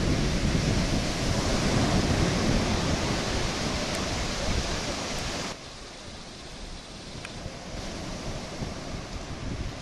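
Wind buffeting the microphone: a rushing noise with a gusty low rumble. It drops off suddenly a little over halfway through, then slowly builds again.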